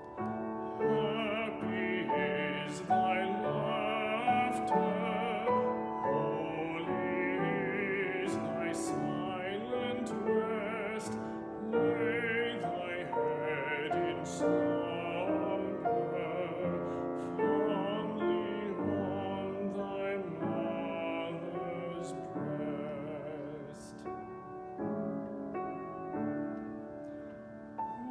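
A classical solo voice singing a carol with wide vibrato, accompanied by piano.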